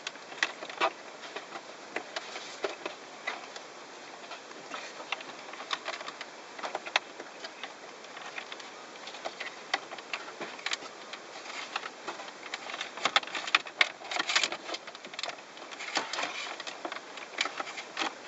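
An aux cable is being pulled down through a car's dashboard trim: scattered light clicks and rustles of cable and plastic panel pieces rubbing and knocking, busier in the last few seconds.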